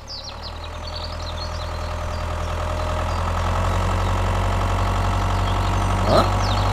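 Tractor engine running steadily, getting louder over the first few seconds. Birds chirp near the start.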